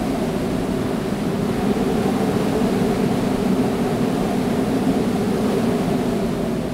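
Steady rushing of wind and sea aboard a sailing ship under way in rough water, with a faint low hum underneath, fading near the end.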